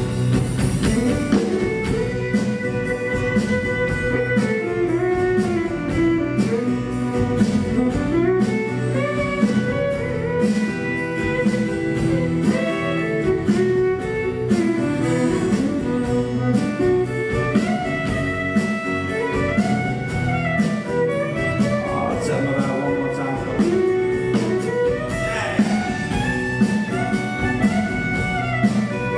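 Cajun band playing an instrumental passage: a Dino Baffetti button accordion and a fiddle carry the melody over a guitar and a steady beat.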